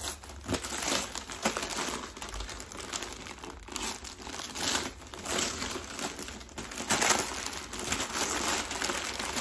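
Gift wrapping crinkling and rustling in irregular handfuls as a present is unwrapped.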